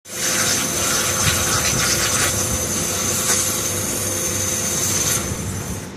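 A CNC plate-cutting machine running: a steady loud hiss with a high whine through it, over a low machine hum. The hiss and whine ease off about five seconds in.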